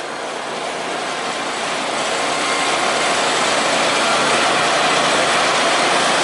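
Simplicity Legacy riding garden tractor's engine running as it drives across the lawn, a steady noisy drone that grows gradually louder over the first two or three seconds.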